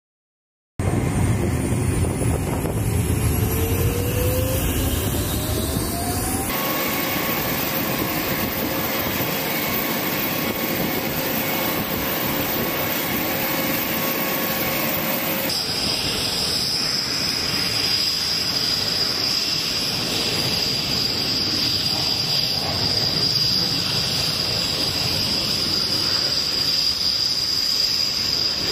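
Jet turbine noise on an air base flight line: a steady rushing roar with high-pitched whines, one rising in pitch over the first few seconds as a turbine spools up. The sound shifts abruptly twice, settling into a steady high whine over the roar.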